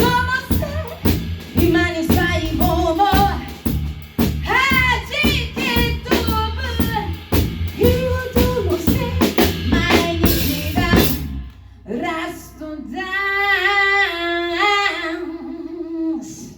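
Live band playing a song, with singing over drum kit and bass. The band stops on a cymbal crash about eleven seconds in, and the singer holds one long, wavering closing note alone.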